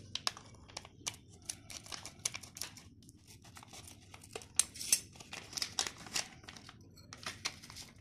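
Clear plastic parts packet crinkling as it is handled and cut open with scissors: a run of short, irregular crackles.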